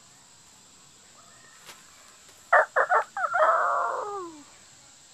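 Rooster crowing once, about two and a half seconds in: a few short notes, then a long drawn-out note that falls away at the end.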